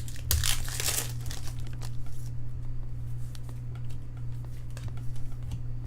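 Trading cards and foil pack wrappers being handled, rustling and crinkling, loudest in the first second and lighter afterwards, over a steady low hum.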